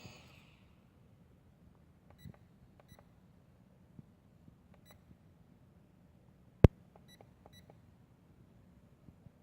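Short electronic beeps from a toy drone's remote controller, about five in all, some in pairs, typical of the controller and drone pairing before takeoff. A single sharp click, louder than the beeps, falls partway through.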